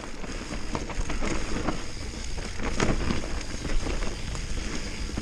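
Mountain bike rolling fast down a dirt trail. Tyre noise and wind on the microphone, with frequent short clicks and knocks as the bike rattles over bumps and roots.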